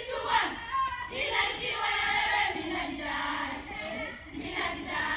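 A group of girls singing a marching song together as they march in drill.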